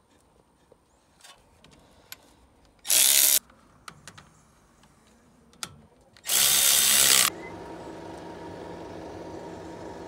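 Cordless power tool run in two bursts, one about half a second long and one about a second long. After the second burst a steady hum with a few held tones carries on.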